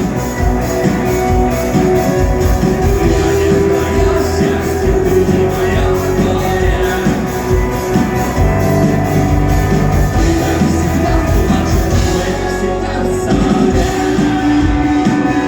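A rock band playing live: guitar over a steady beat, with singing at times.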